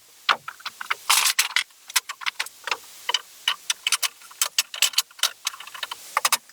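A series of irregular sharp clicks and knocks, some louder than others, with short gaps between them.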